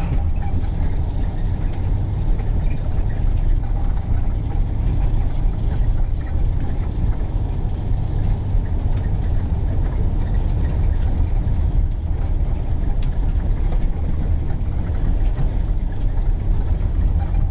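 Vehicle driving along a dirt road, heard from inside the cab: a steady low rumble of engine and tyres on the unpaved surface, with a few faint rattles.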